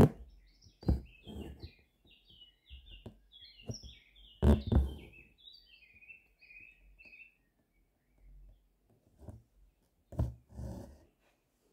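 Small birds chirping in a quick run of short chirps that stops about two-thirds of the way through. Over it come the scratchy rubs and soft knocks of an embroidery needle and thread being drawn through fabric stretched in a hoop. The loudest of these come right at the start, about four and a half seconds in, and again near the end.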